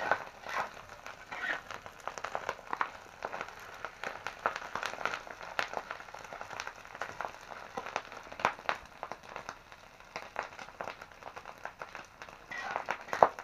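Meat stir-frying in a pan over a wood fire: steady sizzling dotted with many small crackles and pops, one louder pop near the end.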